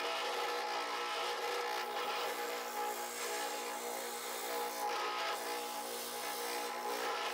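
Spindle sander running steadily, its motor giving an even hum while a small pattern piece is sanded against the spinning drum.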